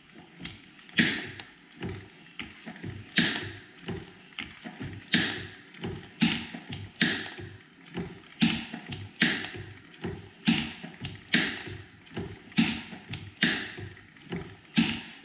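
Hand-turned working model of a Corliss steam engine, its trip valve gear clicking as the valves snap open and closed: a steady run of sharp clicks, louder ones about once a second with lighter taps between.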